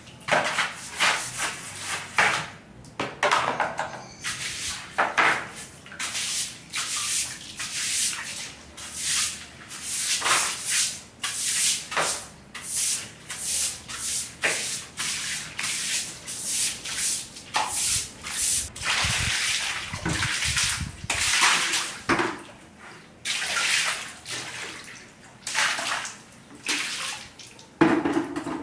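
Plastic-bristled broom brushing across a tiled floor in repeated short swishing strokes.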